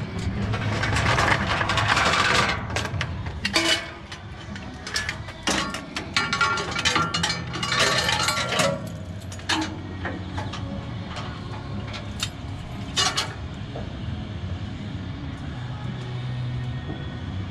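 Metal chain links of a chain fall clinking and rattling in irregular bursts as the chain is handled, after a rush of wind noise at the start.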